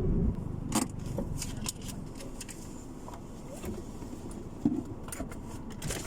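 A car's low rumble cuts off suddenly near the start, followed by a series of sharp light clicks and knocks over a quieter background.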